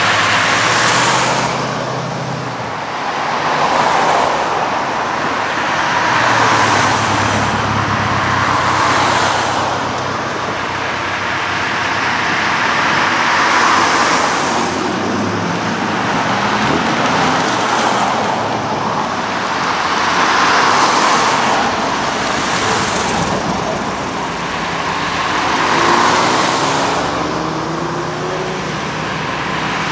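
A procession of cars driving past one after another, each one's engine and tyre noise swelling and fading every two to three seconds. About three quarters of the way in, one engine's note rises as it accelerates.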